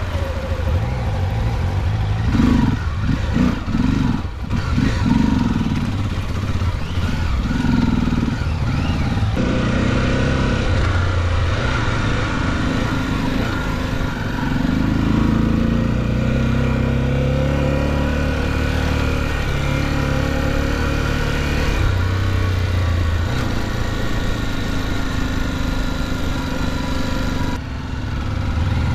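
Off-road motorcycle engine running under way, its revs rising and falling. The first several seconds are choppy and uneven, and the engine note then settles into a steadier run.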